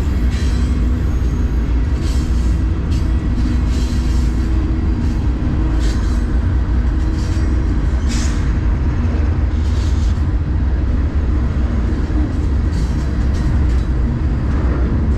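Freight train rolling along the rails, heard from aboard a car: a loud, steady low rumble with scattered sharp clanks.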